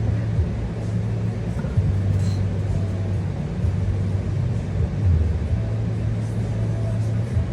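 A steady low rumbling hum with a few faint clicks and taps over it.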